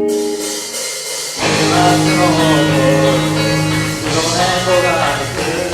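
A band playing a song's instrumental intro. A held chord fades, then about a second and a half in the full band comes in with a steady bass note under a lead melody that slides and wavers in pitch.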